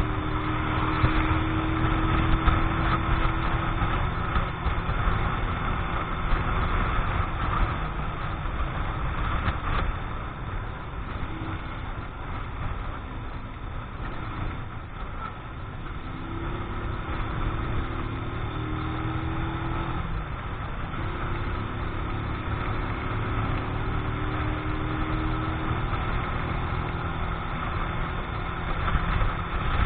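Keeway X-Light 125 cc motorcycle engine running at moderate, steady road speed during its running-in period, with wind rush over the on-board microphone. The engine note eases off and gets quieter for a few seconds around the middle, then picks up again toward the end.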